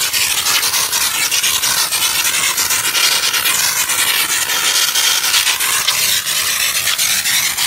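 Trigger steam gun of a 12-bar LPG steam car washer blasting wet steam at close range onto a car bumper: a loud, steady hiss. The washer is set to its wettest steam, for the highest water content.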